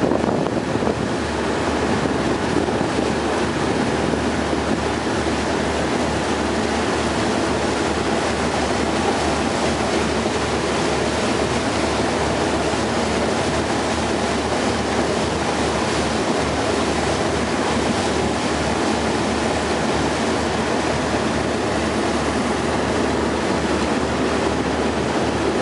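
Rigid inflatable boat under way: a steady rush of wind on the microphone and water against the hull, with the boat's engine running underneath.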